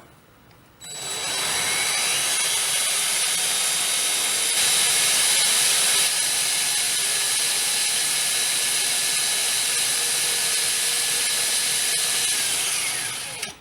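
Battery-powered drill spinning a 1/4-inch diamond bit, grinding a hole through glass under water. The drill starts about a second in, runs steadily with a high whine, and winds down near the end.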